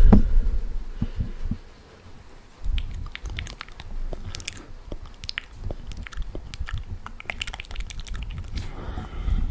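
Close-miked mouth sounds: a dense run of quick clicks and crackles, like chewing and biting, over a low rumble. They pause briefly about two seconds in.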